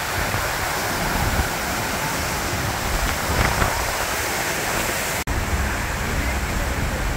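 Seljalandsfoss waterfall pouring into its pool: a steady, dense rush of falling water and spray. The sound cuts out for an instant about five seconds in.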